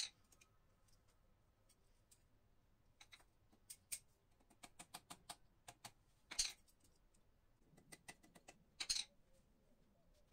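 Irregular light clicks and taps, with louder knocks about six and nine seconds in, over an otherwise quiet background.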